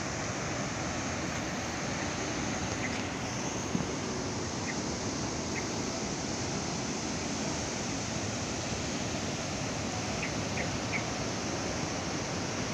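Steady rush of rough surf breaking along the shore, mixed with wind. A few faint short chirps and one brief knock a little under four seconds in.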